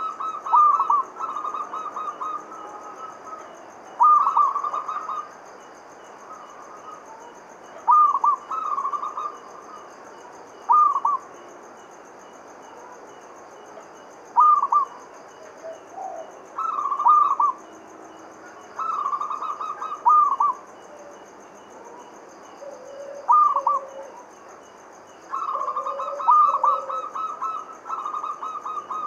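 Zebra dove (perkutut) cooing: short phrases of quick, rolling coos, repeated every few seconds. A steady faint high-pitched buzz runs underneath.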